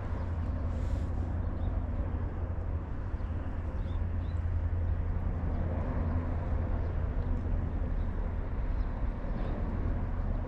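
Steady low outdoor rumble, with a few faint, short high chirps.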